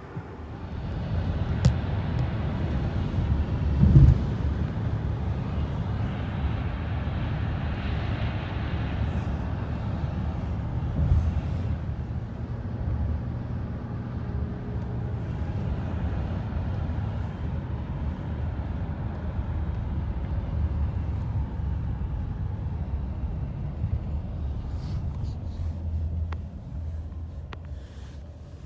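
Car on the move, heard from inside the cabin: a steady low rumble of road and engine noise, with two short thumps about four and eleven seconds in. The rumble drops off near the end.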